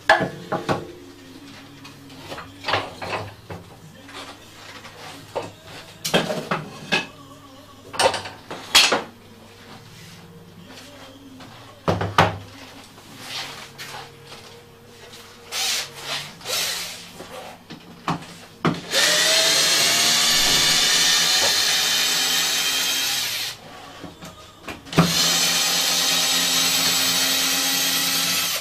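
A cordless drill runs into a wooden board twice: first for about five seconds, then, after a short pause, for about three and a half seconds. Each run opens with a rising whine as the motor spins up. Before the drilling come scattered knocks and clatter of wooden parts being handled on a workbench.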